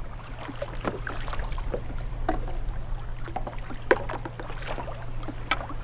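Water lapping and splashing around kayaks at sea, with scattered short knocks and splashes, the sharpest about four seconds in, over a steady low hum.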